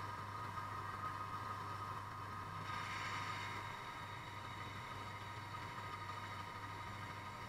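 Drill press motor running steadily with a constant whine and hum, with a brief rise in hiss about three seconds in.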